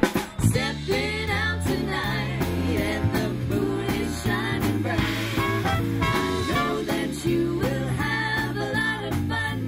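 Live swing band playing a swing tune with a steady beat: saxophones and trumpets over electric bass, guitar and drums.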